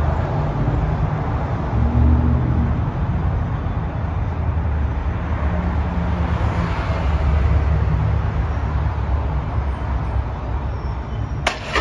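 Street traffic: cars passing with a steady low rumble that swells for a couple of seconds midway. A single sharp knock near the end.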